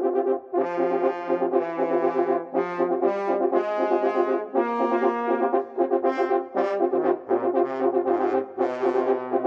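A French horn ensemble playing in several-part harmony over a moving lower bass line, with a longer held chord about halfway through.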